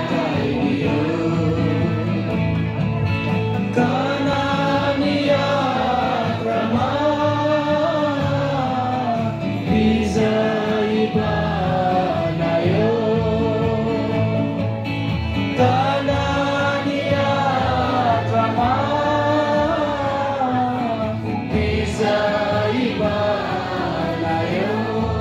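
Christian worship song: voices singing long, held lines over a steady instrumental backing.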